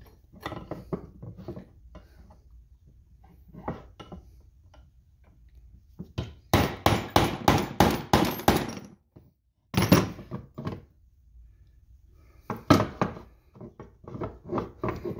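A hammer striking a brass punch to drive a part out, the work resting on a bench block. Light handling clicks come first, then a quick run of about a dozen taps some six seconds in, one heavier blow near ten seconds, and a few more taps near the end.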